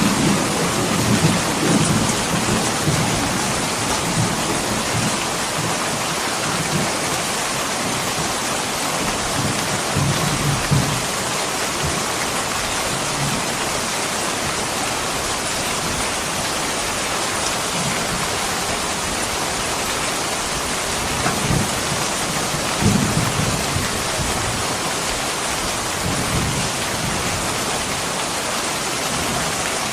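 Heavy rain falling steadily, with a few short low rumbles, most in the first few seconds and again about two-thirds of the way through.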